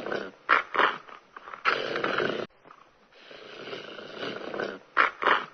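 Snoring: a drawn-in breath that swells, two short snorts, then a loud rasping breath out, the cycle repeating about every three and a half seconds.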